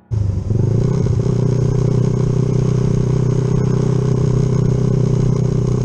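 Yamaha Jupiter MX motorcycle engine, fitted with a 72 piston, running at a steady speed. It cuts in abruptly at the start and holds an even pitch with no revving.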